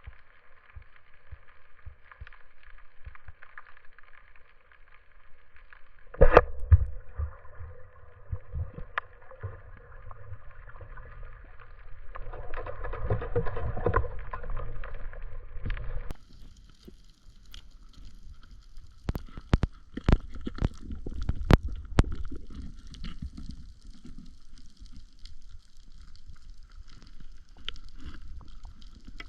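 Underwater sound picked up by an action camera in its housing: a low water rumble with steady tones, a loud sharp click about six seconds in, and several more sharp clicks about twenty seconds in.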